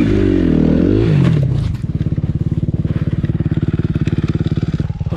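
Motor vehicle engine revving, its pitch rising and falling, then settling about two seconds in into a steady idle with an even, rapid pulse.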